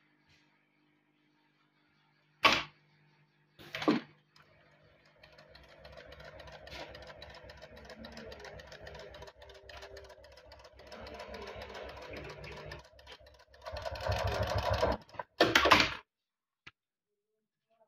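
Dürkopp Adler 467 industrial sewing machine stitching a test seam through fabric with a fast, even rhythm. Two sharp clicks come before it starts. The machine runs louder for the last couple of seconds, then stops.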